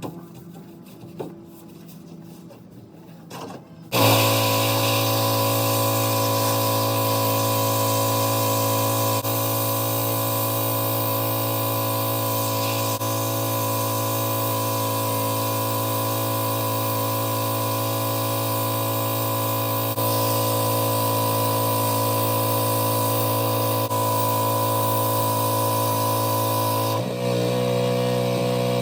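Pressure washer switching on about four seconds in and running steadily, a motor hum under a high spray hiss as it washes down a fiberglass truck toolbox. Its pitch steps down slightly near the end.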